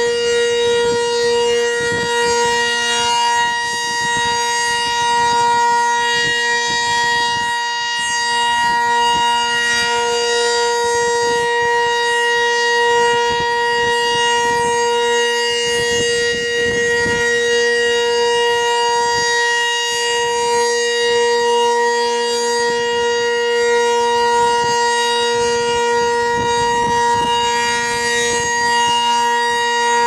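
Sentry 15V2T dual-tone rotating outdoor warning siren sounding a steady tone at full speed, its chord holding one constant pitch while the loudness swells and dips slightly. Gusts of wind buffet the microphone underneath.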